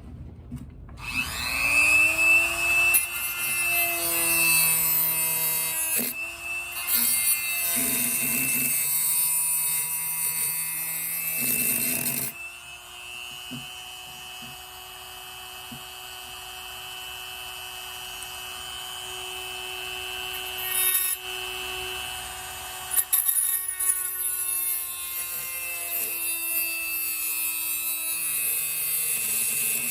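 Rotary tool with a small circular saw blade spinning up about a second in, then running with a steady high whine as it cuts away the wedges. The cutting comes in two spells, with a lighter free-running stretch in the middle.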